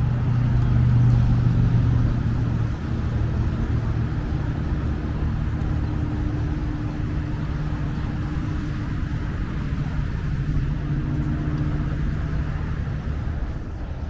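A vehicle engine running, a steady low hum with even tones that is loudest in the first couple of seconds.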